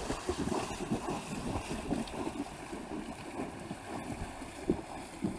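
Shallow river water splashing and churning around the legs of cyclists wading across a fast-flowing current, over the steady rush of the river.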